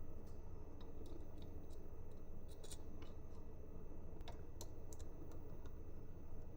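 Irregular light clicks and ticks from small hardware and tools being handled during assembly, over a steady low hum, with a small cluster of clicks a few seconds in.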